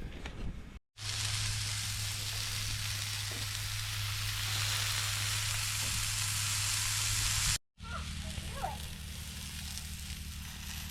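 Chicken burgers sizzling on a Blackstone flat-top griddle: a steady, dense hiss with a low hum under it. It starts about a second in and stops abruptly near the end.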